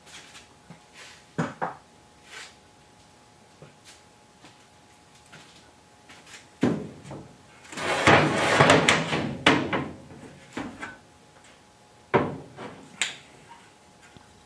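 Steel truck-bed cross-sill channels being set down and slid across the bed's corrugated steel floor: a few knocks, then a longer scraping clatter about seven to ten seconds in, and a sharp clunk near the end.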